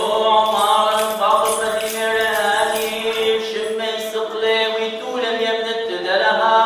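A man's solo voice chanting a liturgical Gospel reading, sung as one long phrase of drawn-out, gently sliding notes that stops at the very end.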